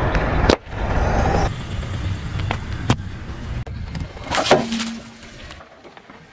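A car's engine running as its tyre rolls slowly onto balloons on asphalt, with a few sharp pops as balloons burst and a louder burst about four and a half seconds in.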